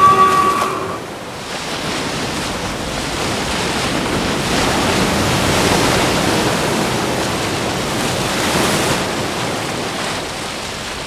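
Rough sea surf: a dense, steady rush of waves, swelling around the middle and easing toward the end. In the first second a steady whistle tone cuts off.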